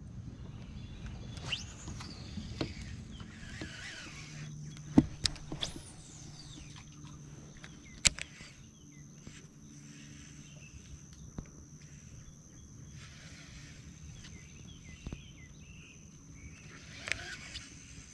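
Faint outdoor ambience with scattered light clicks and knocks, two sharper ones about five and eight seconds in, over a thin steady high tone.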